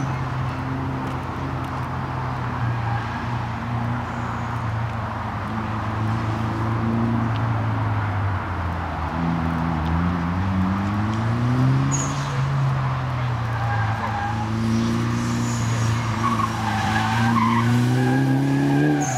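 Mitsubishi Lancer Evolution's turbocharged four-cylinder engine working hard around a tight course, its revs falling and then climbing twice, about halfway through and again in the last few seconds. Tyres squeal through a corner near the end.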